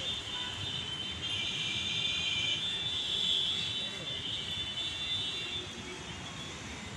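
Train running, its wheels squealing on the rails: a high, wavering screech that swells in the middle and fades near the end, over a steady rumble.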